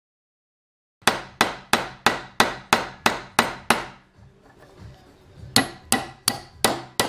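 A hammer strikes steel held in a bench vise, driving washers onto a steel rod. There are nine quick ringing blows, about three a second, then a short pause with faint handling noise and five more blows.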